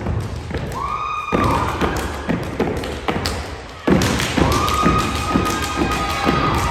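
Step team stepping on a hardwood gym floor: rhythmic foot stomps and hand claps and slaps in a steady beat. Two held, high-pitched shouted calls come over it, one about a second in and a longer one from about four seconds in.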